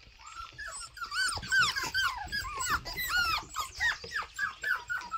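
Young puppies whimpering and squeaking in a rapid run of short, high, arching cries, several a second, starting about half a second in.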